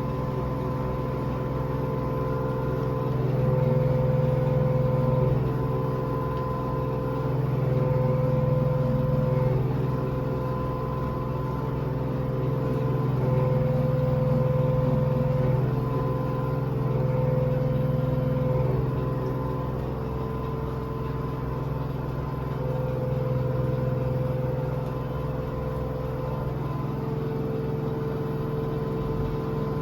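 Washing machine spinning at its maximum spin speed: a steady motor hum with a higher whine over it, swelling louder and easing back every four to five seconds.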